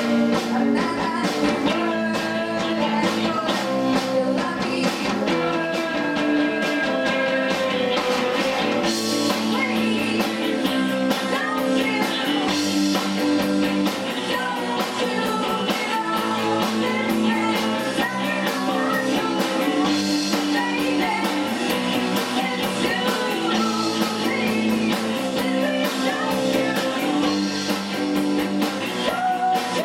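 Indie rock band playing live: distorted electric guitars, bass and drum kit, with a woman singing lead.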